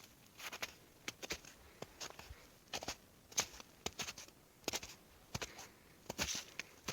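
Footsteps of a person walking on a forest trail, each step a short crunch, at an unhurried, slightly uneven pace of roughly one to two steps a second.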